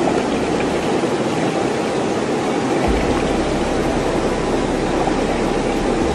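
Steady rush of river water, with splashing as a woman standing in the water scoops it over her arms. A low rumble comes in about three seconds in.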